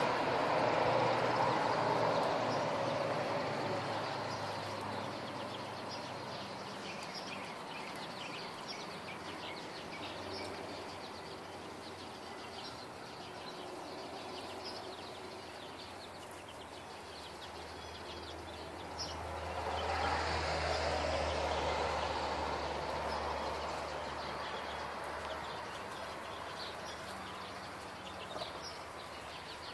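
Two vehicles passing on a road, each swelling and fading, the first at the start and the second about twenty seconds in with a low engine hum, while short high bird chirps come scattered throughout.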